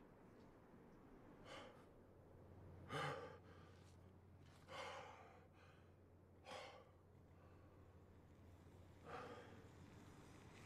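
A man breathing heavily: about five quiet, hard breaths roughly two seconds apart, the strongest about three seconds in, over a faint low hum.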